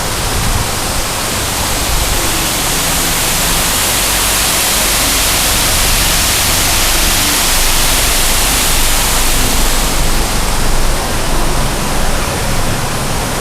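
Water from a swimming-pool waterfall pouring down in a steady, loud rush, brighter and hissier for several seconds in the middle.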